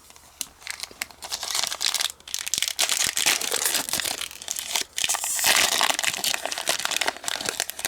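Packaging crinkling and rustling as it is handled, a dense crackle that is busiest in the middle seconds.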